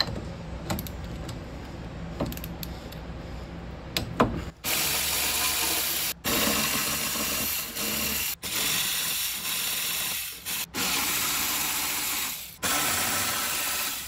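Cordless electric ratchet running in repeated spurts of one to two seconds with brief stops between them, spinning out the Fiat X1/9's front strut bolts while a wrench holds the nut side. Before the tool starts, for the first few seconds, there are light metal clicks of tools being fitted on the bolts.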